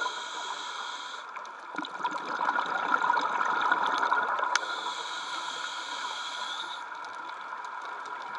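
Scuba diver breathing through a regulator underwater: a hissing inhalation at the start and another about five seconds in, with the noise of exhaled bubbles in between.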